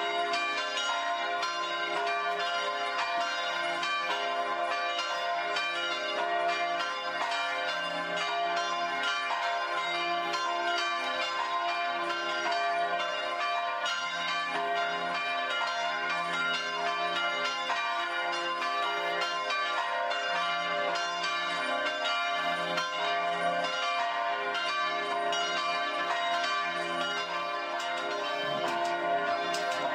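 Church bells ringing a continuous peal, many bells struck in quick succession with their tones overlapping and ringing on.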